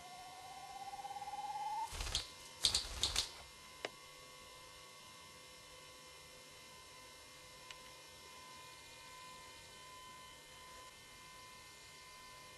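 Male Siberian spruce grouse displaying: a rising, quickening pulsed sound that swells over about two seconds, then a quick cluster of loud claps and a single click. A faint steady hum lies underneath.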